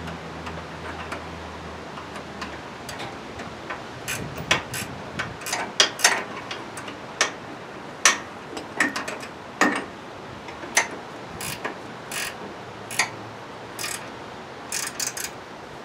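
Sharp metallic clicks and clinks, irregular, single and in short clusters, from hand tools worked on the rusty steel mounting hardware of a snow plow being bolted onto a garden tractor.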